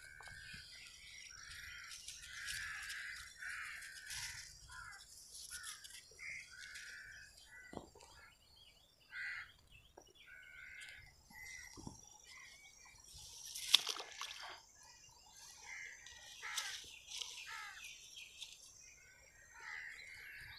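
Birds calling over and over, short harsh calls in an outdoor background, with a few sharp clicks or knocks. The loudest click comes about two-thirds of the way through.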